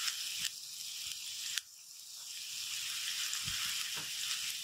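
Carrots and green capsicum sizzling in hot oil in a kadai, a steady hiss. About a second and a half in there is a sharp click, after which the hiss drops and slowly builds back up.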